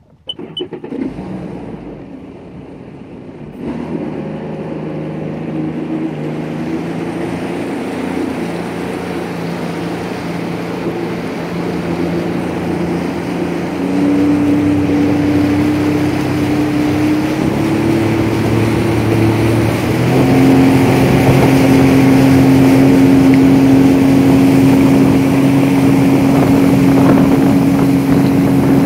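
Sea-Doo personal watercraft engine running under way and picking up speed in steps, its pitch and loudness rising about 4, 14 and 20 seconds in, over a rushing hiss.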